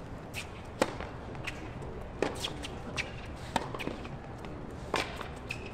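Tennis ball struck by rackets in a rally: a sharp serve strike about a second in, then further crisp hits and bounces roughly a second apart, over a low crowd murmur.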